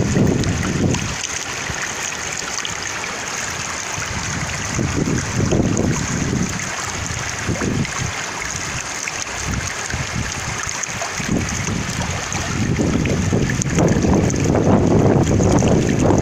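Flowing water hissing steadily under gusty winter wind that buffets the microphone with low rumbles. The gusts are strong at the start, ease off, then build again over the last few seconds.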